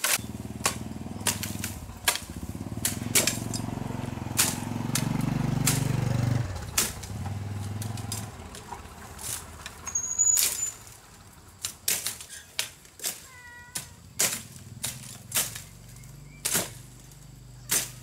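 Machetes chopping into bamboo culms: sharp, irregular knocks, about one or two a second. A low rumble runs under the first seven seconds, and a bird chirps briefly near the middle.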